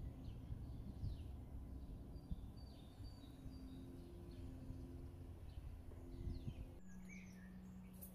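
Small birds chirping and calling in short, high notes over a low outdoor rumble; near the end the rumble gives way to a steady low hum.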